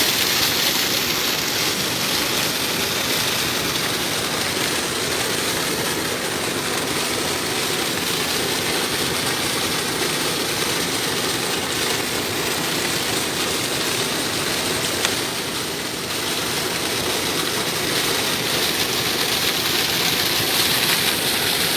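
Well-drilling rig running steadily under power: a continuous mechanical noise with a faint steady hum, dipping briefly about two-thirds of the way through.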